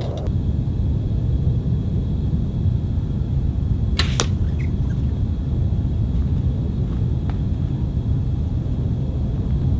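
Steady low rumble of wind buffeting the microphone, with a sharp double snap about four seconds in.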